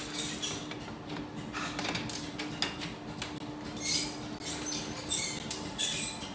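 Scattered light clicks and ticks from the enamelling kiln's metal carrier rack and roller rails as a fired sign is drawn out of the open kiln, over a steady low hum.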